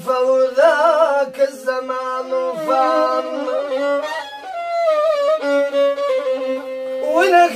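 Violin playing a solo melody with vibrato and sliding ornaments, over a steady held drone note beneath it.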